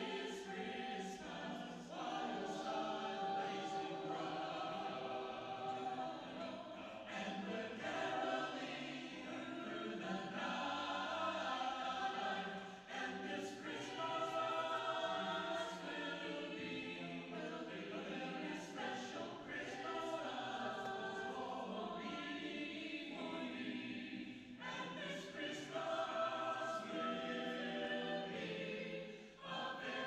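Mixed choir of men's and women's voices singing in harmony, some singers on handheld microphones.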